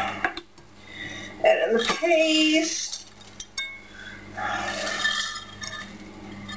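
Frozen peas tipped from a glass measuring jug into a glass mixing bowl of wet cheese-and-creamed-corn mixture, a noisy stretch about four to six seconds in. A short voice-like sound about two seconds in, over a steady low hum.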